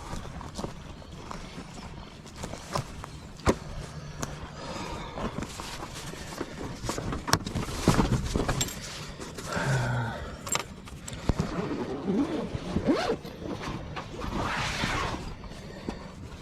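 Scattered clicks, knocks and rustling, like camping gear being handled and moved about, with a few longer scraping or rustling bursts, over a steady low rumble.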